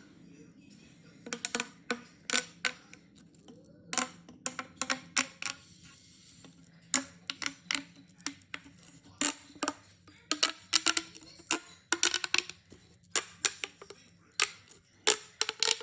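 Plastic pop tube fidget toys being snapped back together: a run of sharp, irregular plastic clicks and snaps.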